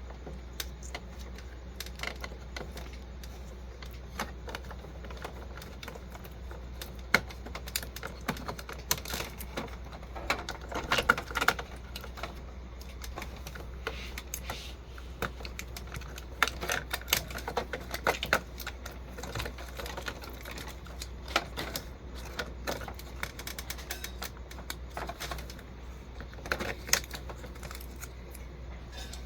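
Irregular light clicks and taps of plastic printer parts being handled as an ink cartridge is refitted into an Epson ET-2760 EcoTank printer, busiest in two clusters in the first half.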